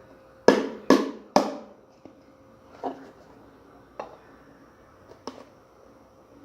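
Three hard knocks about half a second apart, each ringing briefly, then a few lighter knocks spaced about a second apart: something being struck against a hard surface.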